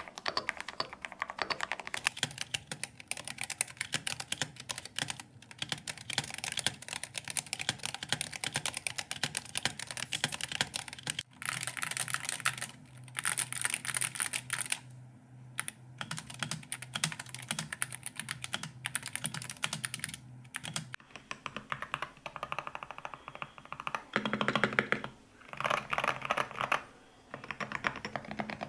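Typing test on rapid-trigger magnetic-switch gaming keyboards: fast, dense runs of key clicks. Around 21 seconds in the sound changes to shorter clusters of keystrokes with brief pauses.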